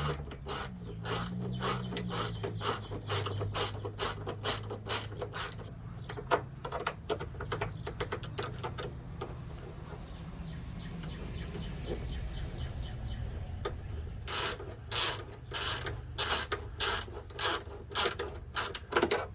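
Hand ratchet clicking in quick runs as the hood latch bolts are driven in. The runs are rapid at first, thin out in the middle, and come back louder near the end.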